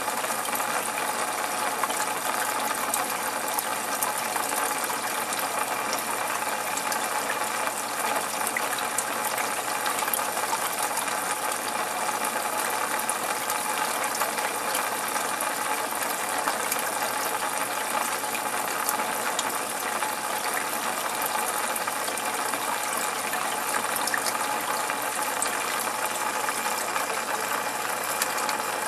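Aquarium equipment running steadily with water noise, a dense fine crackling over a constant hiss.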